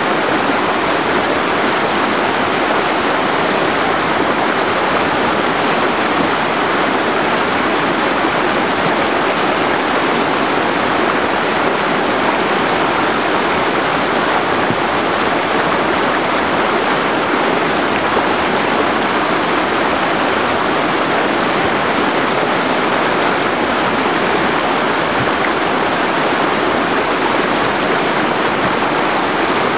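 Whitewater rapids rushing steadily: a loud, even wash of churning river water with no breaks.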